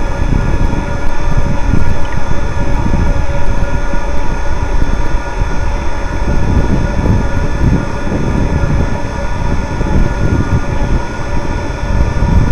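Gusty wind buffeting the onboard microphone of a radio-controlled model ship under way, over a steady whine from the model's drive motors.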